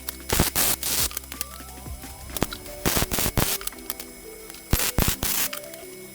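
Background music: a melody of held notes with loud, sharp percussive hits that come in clusters about every two seconds.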